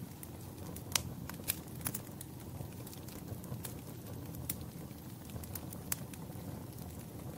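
Wood fire crackling: irregular sharp pops and snaps over a steady low rumble of flames, with the loudest pops about a second in, near one and a half seconds, and near six seconds.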